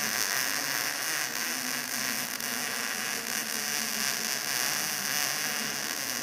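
Electric welding arc from a Stahlwerk MIG-TIG Digital 200 welder, a steady sizzling hiss held unbroken while a weld bead is laid.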